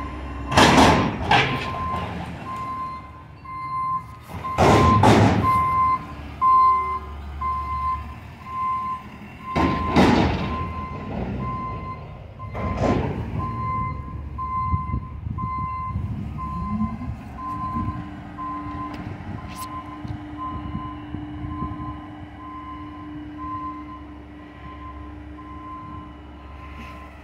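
Garbage truck working in the street, its backup alarm beeping steadily over and over. Several loud bangs and clanks come in the first half. About seventeen seconds in, the engine speeds up to a steady higher hum.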